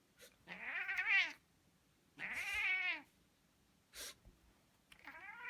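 Persian cat meowing three times, each meow rising and then falling in pitch, with a short click between the second and third.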